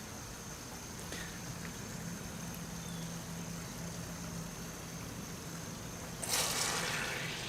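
Sump pump running in a water test, a steady low hum with water moving, then a brief loud rush of water near the end.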